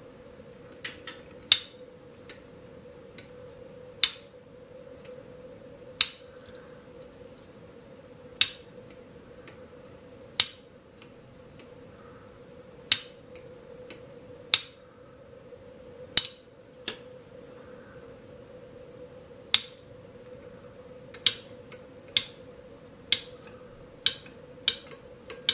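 Old pull-type solenoid switch being energized again and again, its iron plunger snapping into the coil with a sharp metallic click each time power reaches it. About twenty clicks come at irregular intervals, bunching closer together near the end, over a faint steady hum.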